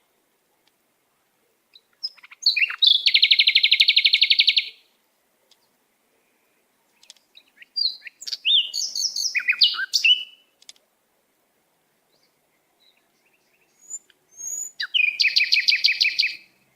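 A songbird singing in three separate phrases: a rapid trill of repeated high notes, then a run of varied chirps and slurred whistles, then another rapid trill near the end.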